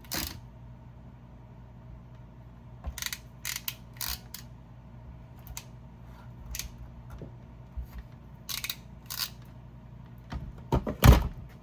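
A hand wire crimping tool being handled and worked: a scattered series of short metal clicks and clacks, with one louder knock near the end.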